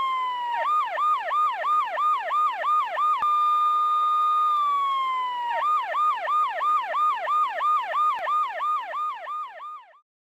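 Police car siren: a held tone that slides down in pitch, then switches to a fast yelp cycling about three to four times a second. The pattern repeats once more, and the siren fades out about ten seconds in.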